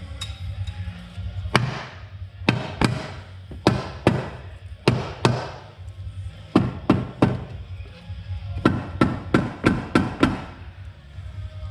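Sharp metallic knocks and clanks, about sixteen in irregular groups, each ringing briefly, from hand tools working on a quad bike's drive belt cover, with background music underneath.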